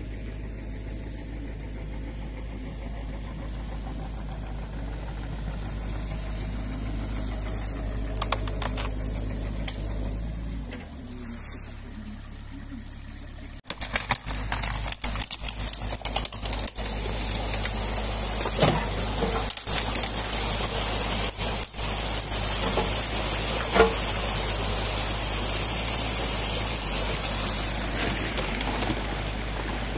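Diesel engine of a New Holland Kobelco E50.2 mini excavator running steadily, low and distant at first, then much louder after a cut about halfway through as the machine digs into the beaver dam. Scattered knocks and cracks from sticks and branches in the dam being broken and dragged out by the bucket.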